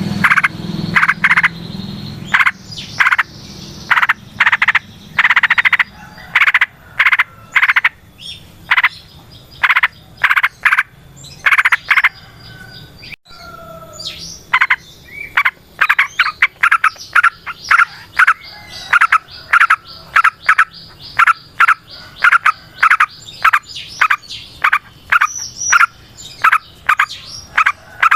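Yellow-vented bulbul (trucukan) calling in a long, chattering run of short bubbly notes, about two to three a second, with a short break about halfway.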